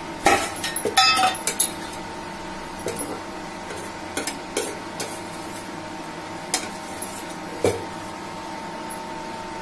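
Battery-powered 24 V induction cooktop running at 700 watts under a griddle, giving a steady high hum. Over it come scattered sharp clinks and knocks of kitchen utensils, the loudest cluster in the first two seconds and single ones later.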